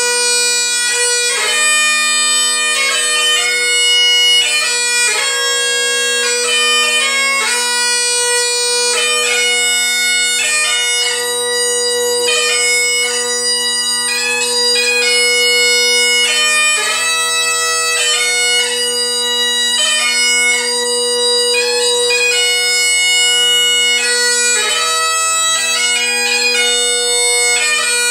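Great Highland bagpipe playing a slow tune: Gillanders drones with Ezeedrone reeds sound a steady, unbroken drone while the McCallum chanter with a G1 reed plays the melody in long held notes.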